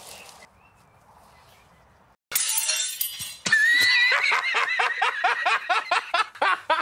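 A loud crash of shattering glass about two seconds in, then hearty laughter in quick repeated bursts.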